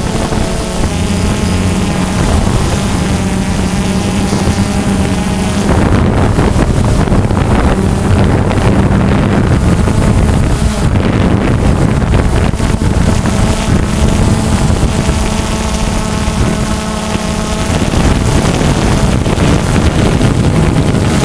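Quadcopter's electric motors and propellers buzzing steadily, with wind noise over the microphone. The pitch of the motors wavers and shifts as the drone manoeuvres.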